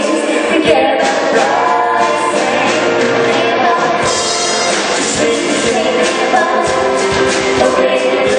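Choir singing a pop song arrangement, several voices in harmony over a steady beat.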